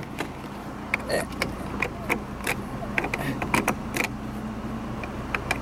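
The 1994 Plymouth Colt's 1.8-litre four-cylinder engine idling steadily, heard from inside the cabin. Many short clicks and rattles from seatbelt buckles and webbing being handled run over it.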